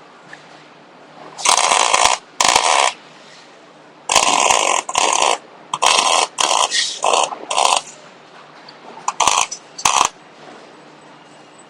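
MIG welder laying a series of short tack welds: about ten crackling, buzzing bursts of under a second each, in groups, with brief pauses between them.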